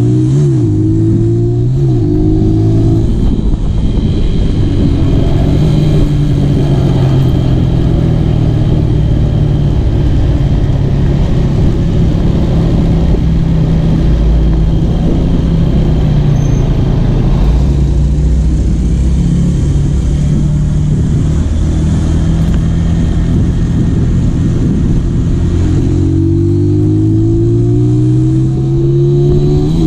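Stroked-up Honda Tiger motorcycle engine under way, revving up through the gears at the start and again near the end, with a steadier pull in between.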